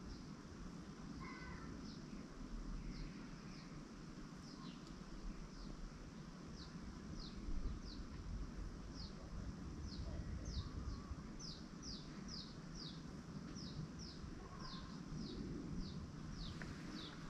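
Black redstart chick calling: a thin, high, downward-slurred note repeated about once a second, speeding up to two or three a second about halfway through, over a faint low background rumble.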